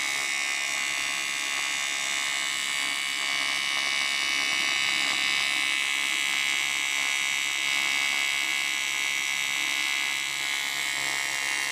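AC TIG (argon-arc) welding arc buzzing steadily as tack welds are laid on a cracked aluminium steering knuckle with a 315-amp welder.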